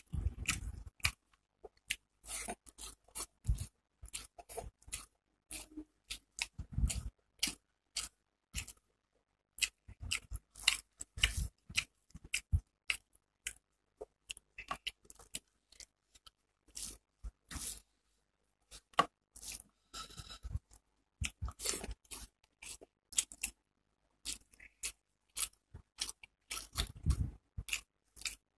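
Close-miked eating sounds of a person eating rice and hilsa fish curry by hand: chewing and wet mouth smacks in many short, irregular clicks.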